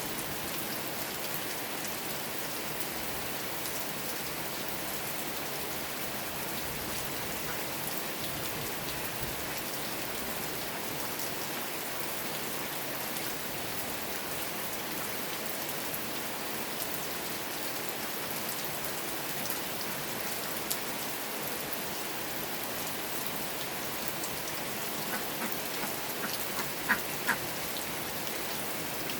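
Steady rain falling, an even hiss of drops on surfaces. Near the end a few short, sharp pitched calls or pops stand out above the rain.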